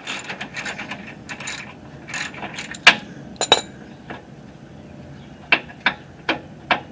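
Hand ratchet clicking as it backs out a loosened 17 mm frame bolt: quick runs of clicks in the first half, then separate sharp clicks about half a second apart.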